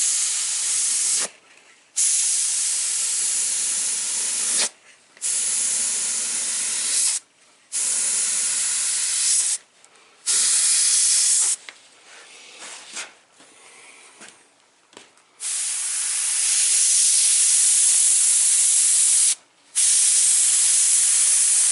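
Airbrush spraying paint in repeated bursts of air hiss, each lasting one to four seconds and cutting off sharply as the trigger is let go. There is a quieter lull in the middle before a longer spray near the end.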